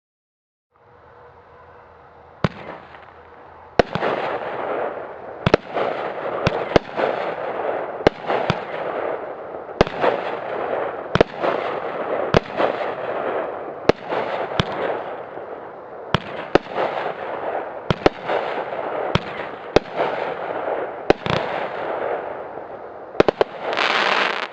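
A 16-shot consumer firework cake firing. A steady hiss starts about a second in, then comes a long run of sharp bangs, one to two a second, as the shells lift and break. Loud crackling fills the gaps between the bangs, and a dense burst of crackle comes near the end.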